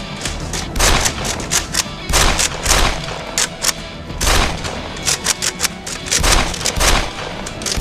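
Background music with repeated bursts of gunfire, a rapid, irregular string of sharp shots.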